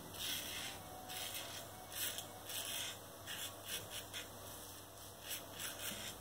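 Gillette Slim adjustable safety razor scraping across lathered stubble in a quick, irregular series of short strokes, a soft rasp on each pass. This is the final touch-up pass of a wet shave.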